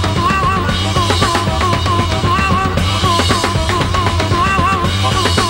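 Blues-rock band playing live: a harmonica plays short repeated figures of notes that bend up and down in pitch, over a driving drum kit and bass.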